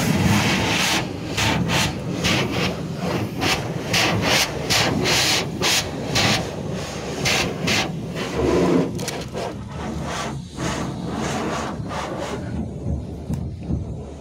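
High-pressure water jet of a self-service car wash hissing onto a car's body, the spray noise rising and falling as the wand sweeps; it falls away in the last couple of seconds.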